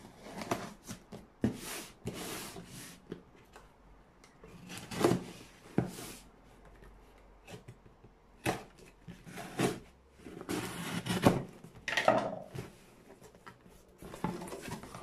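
A cardboard shipping box being opened by hand: a knife slitting the packing tape, then the cardboard scraping and the flaps being pulled open, in irregular rustling bursts and knocks.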